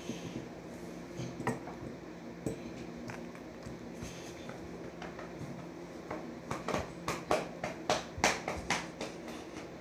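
Light clicks and taps of marbles, plastic balls and fidget spinners being handled and stacked on a wooden table, a few scattered at first and then a quicker run of clicks, about three a second, in the last few seconds. A faint steady hum lies underneath.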